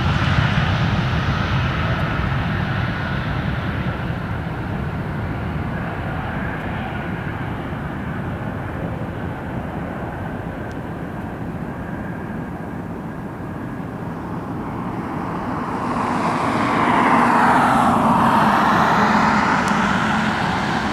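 Airbus A320 jet engines at takeoff power: a steady roar through the takeoff roll and liftoff that slowly fades. About sixteen seconds in it swells loudly again with a sweeping, phasing whoosh, then eases off near the end.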